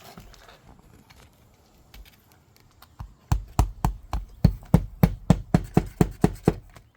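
Hammer driving roofing nails into asphalt shingles: a few light knocks, then about three seconds in a quick run of about a dozen sharp blows at roughly four a second.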